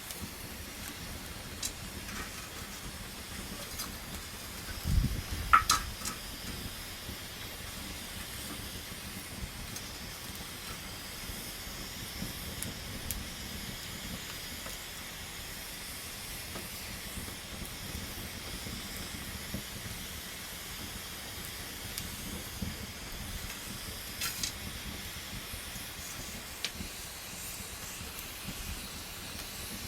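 Wood campfire burning with a steady hiss and scattered crackles and pops; a louder knock and sharp pop about five seconds in.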